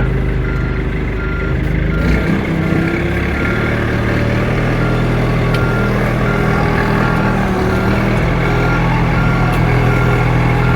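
Backhoe engine running under throttle while its backup alarm beeps steadily, about twice a second, as the machine reverses. The engine note changes about two seconds in, then holds steady.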